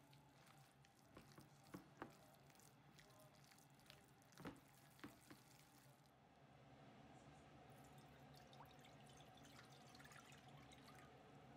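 Faint wet squishing and small clicks of hands kneading a minced chicken and vegetable dumpling mixture in a glass bowl. In the second half comes a soft steady splashing of dashi stock poured from a glass measuring jug into a cast-iron pot.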